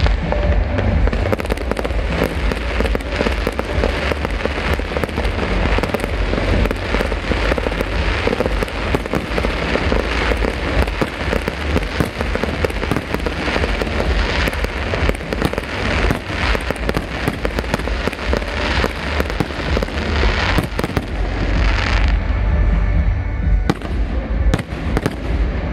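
Aerial fireworks display: a dense, continuous barrage of shell bursts, bangs and crackling overlapping with hardly a pause, thinning a little near the end.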